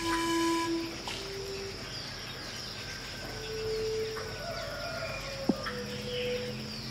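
A held pan flute note ends within the first second. It gives way to a jungle soundscape of birds whistling long held calls at several pitches over insect sounds, with one sharp chirp about five seconds in.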